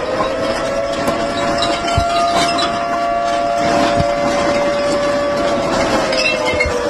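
A long siren-like wail over a steady rumbling background: the pitch rises, holds for several seconds, then slowly falls near the end. A few faint knocks are heard.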